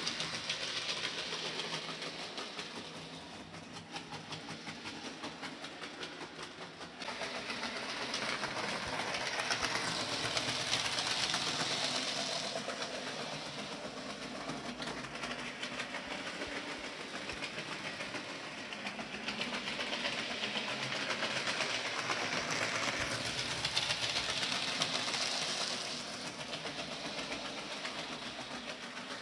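00 gauge model train running on the track: the small electric motor whirring while the wheels click rapidly over the rail joints. It grows louder about seven seconds in.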